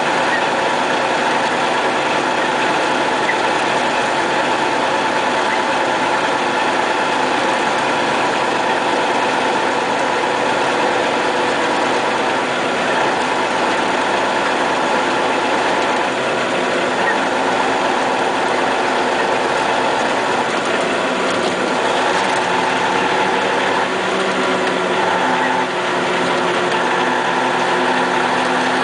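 Steady drone of a MAZ snowplough truck's diesel engine and road noise, heard from inside the cab while driving. The engine's pitch shifts slightly about twenty seconds in.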